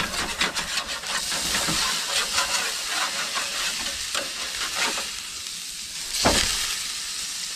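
Pork shoulder steaks sizzling on a barbecue grill, with a metal spatula clicking and scraping against the grate as they are worked. There is a louder scrape about six seconds in as one steak is flipped.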